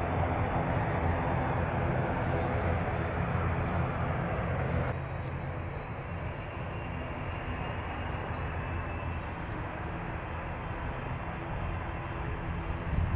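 Airliner engines running steadily at low power: a low hum under a whine. The level drops suddenly about five seconds in, and right at the end a rising whine begins as the engines start to spool up.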